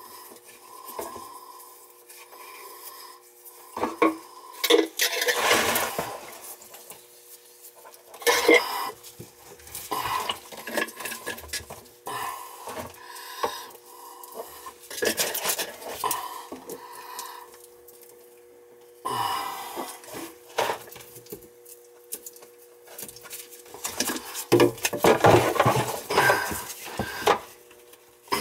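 Irregular clinks, clicks and scraping as dauber-topped cans of PVC primer and cement are handled and white PVC drain fittings are swabbed and knocked together. Near the end, louder rubbing as the plastic fittings are pushed onto the sink drain pipe.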